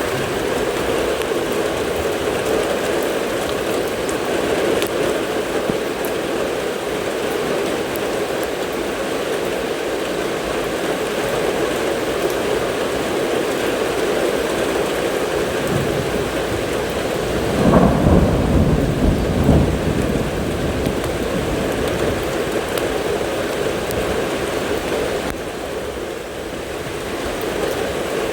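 Steady rain falling during a thunderstorm, with a clap of thunder about two-thirds of the way through that rumbles low in a few pulses for about two seconds.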